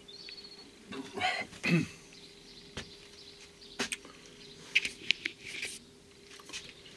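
Quiet clicks and rustles of a camera being handled at close range, with a brief low grunt or throat sound from a man about a second and a half in, over a faint steady hum.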